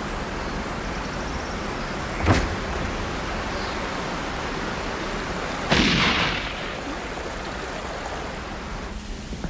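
Steady hiss of background noise, broken by a sharp bang about two seconds in and a louder crack with a short fading tail about six seconds in.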